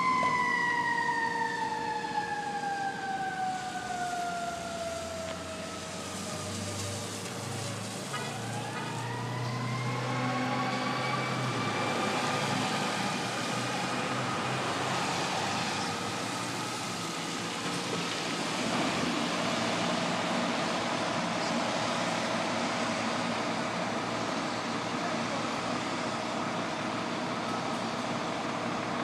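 Fire truck siren winding down in one long falling wail, then about eight seconds in winding back up to a high wail that holds. Under it, a fire engine's motor is running.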